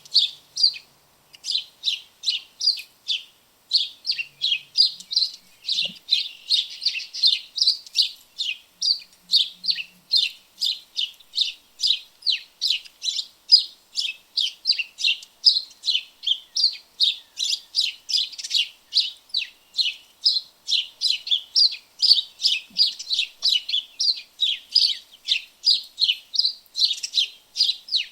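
House sparrows chirping, short sharp chirps repeated over and over at about three a second, with a couple of brief pauses near the start.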